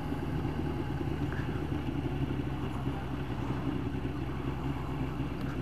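Yamaha YZF 1000cc inline-four motorcycle engine running steadily at cruising speed, with wind rush, heard from the rider's helmet.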